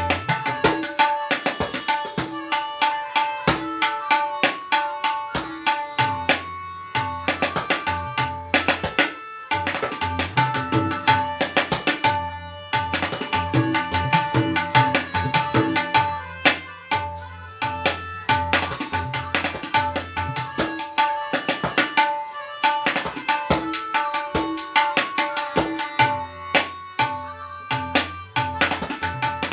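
Tabla playing a solo in the sixteen-beat teentaal cycle: dense, rapid strokes on the treble drum ringing at its tuned pitch, with deep booming strokes on the bass drum.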